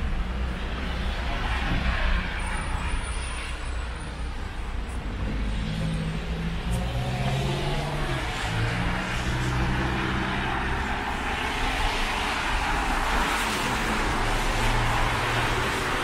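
Road traffic: cars driving on a wet, slushy city road, engines humming and tyres hissing. The tyre hiss grows louder in the second half as a car comes closer.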